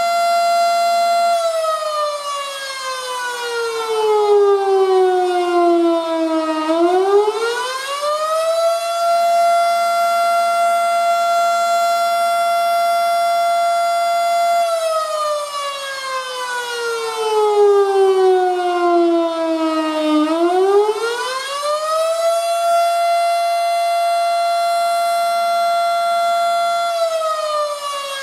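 Federal Model 5 tornado siren sounding its attack signal. A steady tone winds down slowly over about five seconds, then climbs back within a couple of seconds and holds. It goes through this twice, and a third wind-down starts near the end.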